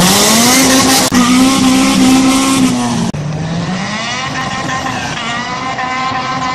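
Honda K20 inline-four engine revving, its note climbing and then held steady and high. About three seconds in, a cut drops it to a lower note that climbs again as the car passes.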